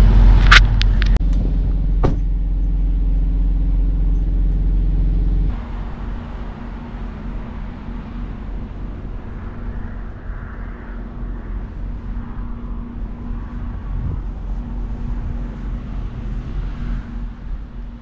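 Steady low diesel hum of semi trucks idling in a truck lot, with a few sharp clicks in the first two seconds. The hum drops suddenly about five and a half seconds in and continues more quietly.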